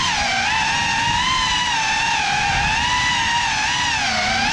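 Small indoor FPV drone's brushless motors whining, the pitch rising and falling with the throttle. It dips lower about a third of a second in and again near the end.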